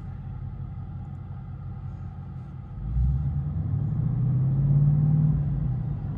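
Ford Mustang GT's 5.0-litre V8, heard from inside the cabin, running with a low rumble, then pulling harder about halfway through as its drone rises slightly in pitch, easing off a second before the end.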